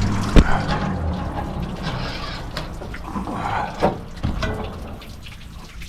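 Water from a garden hose running into an engine's cooling system, with a sharp knock about half a second in and some small clatter of handling.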